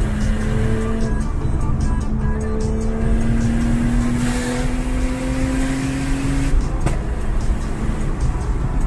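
Car engine heard from inside the cabin, its note rising slowly as the car accelerates on the motorway, then dropping away about six and a half seconds in. Music plays over it, and another car passes close by near the middle.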